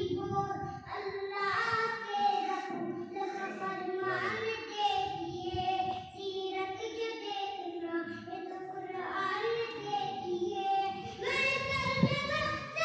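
A boy reciting a naat unaccompanied, singing long melodic lines with drawn-out held notes. A brief thump sounds near the end.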